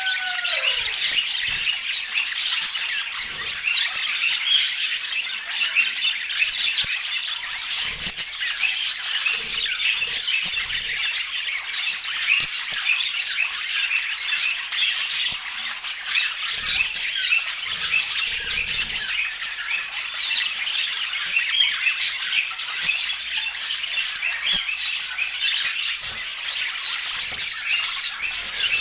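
Budgerigars chattering nonstop: a dense, steady stream of quick high squawks and chirps, several birds calling over one another.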